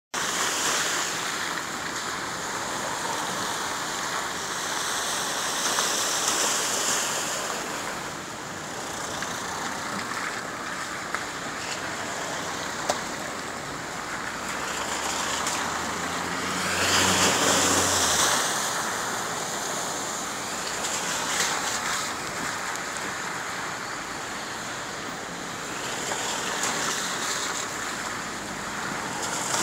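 Steady rush of water and wet tyres as cars drive through floodwater covering the road. One car's engine passes loudest about halfway through.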